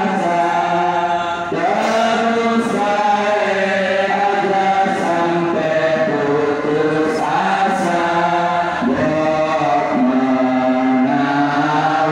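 A group of men chanting together, in long held notes that step up and down in pitch.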